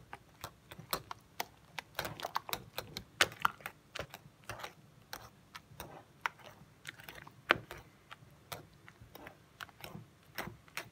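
Wire whisk stirring a thick cheesecake batter in a bowl, its wires clicking and tapping irregularly against the bowl, a few clicks a second.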